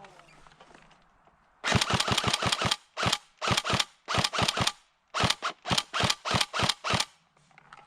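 Airsoft gun firing: a rapid string of shots lasting about a second, then several short bursts of two to four shots each.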